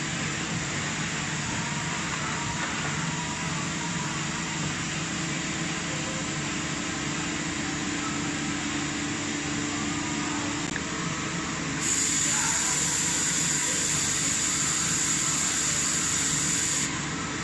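Mazak Integrex 200-SY turning-milling machine running: a steady whir with a low hum that stops about two-thirds of the way through. Near the end a louder hiss comes in for about five seconds and cuts off suddenly.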